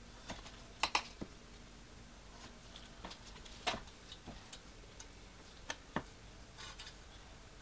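Sparse light clicks and taps of pieces of stained glass being handled and set down on the work surface: a quick double click about a second in, a single one midway and two more close together near the end.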